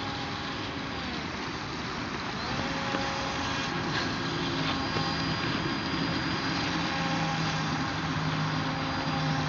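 Small Rimfire 2400 kV brushless electric motor spinning the propeller of an RC snowmobile: a steady whine that drops in pitch about a second and a half in and climbs back up a second later as the throttle is eased and opened again, over a constant hiss.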